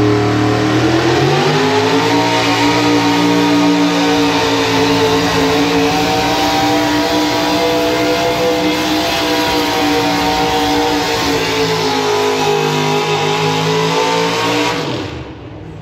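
Pickup truck engine at full throttle pulling a weight-transfer sled: the revs climb about a second and a half in and hold high and steady, then drop off sharply near the end as the pull finishes.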